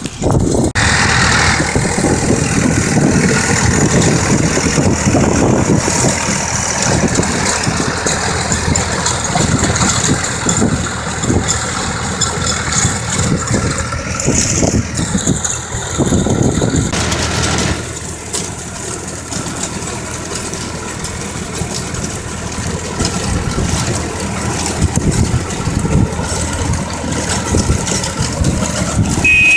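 Engine of a farm vehicle ploughing a field, running steadily, a little quieter from a little over halfway through.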